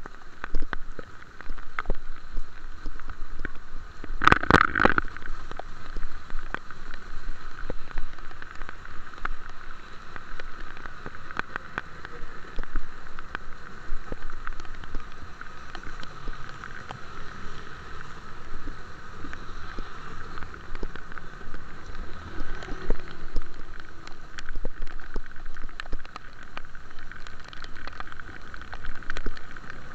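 Steady rain, with many small drop impacts close to the microphone, and a loud clatter a little over four seconds in.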